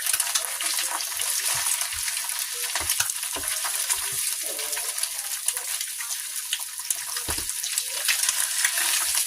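Eggs frying in a hot pan: a steady sizzle with scattered crackles and pops.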